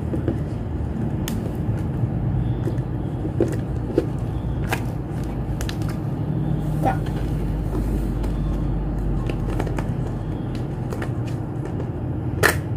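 Plastic toy parts being handled: scattered light clicks and taps, the sharpest one near the end, over a steady low rumble.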